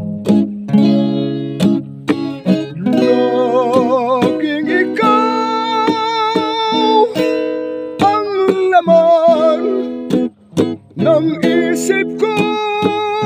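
Acoustic guitar strummed in chords. A solo voice joins about three seconds in, singing a slow Tagalog ballad in long held notes with vibrato.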